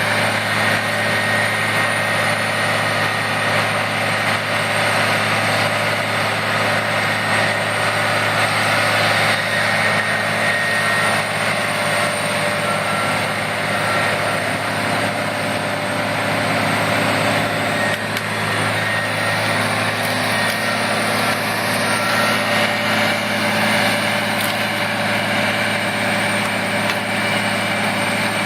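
Large wood chipper running steadily: a constant engine drone with a continuous rushing noise over it.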